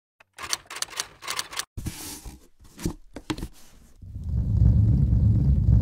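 A quick run of sharp clicks and knocks, then a loud low rumble from about four seconds in.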